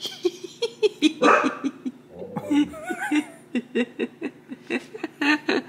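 People laughing, a long run of short, breathy chuckles with a wavering pitch.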